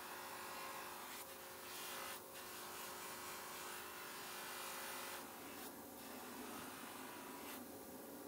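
Small electric power tool running steadily with a motor hum, under a hissing, rubbing noise that grows louder and softer several times as it works.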